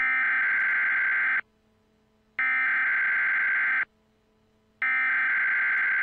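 Emergency Alert System SAME header: three identical bursts of buzzy digital data tones, each about a second and a half long and about a second apart. It is the coded burst that opens an EAS alert.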